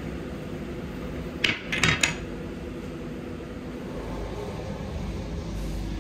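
A steady machine hum, with a quick cluster of three or four sharp knocks about a second and a half in.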